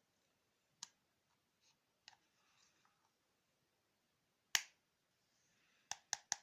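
Isolated sharp clicks or taps of small hard objects: one near the start, one about two seconds in, a louder one about four and a half seconds in, and three quick ones near the end.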